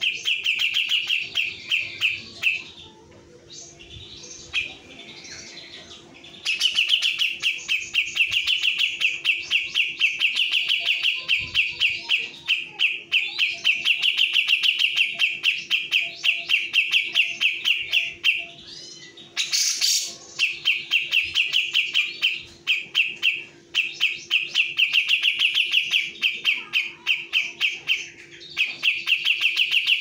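Cucak jenggot (grey-cheeked bulbul) singing in long runs of rapid repeated chattering notes, broken by a few short pauses. A brief burst of noise about two-thirds of the way through, with a faint steady hum underneath.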